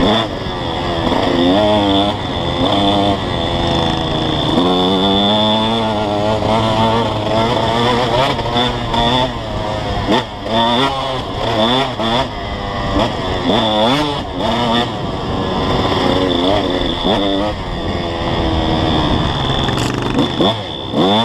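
KTM 150 SX two-stroke dirt bike engine being ridden, revving up and falling back over and over as the throttle is opened and closed.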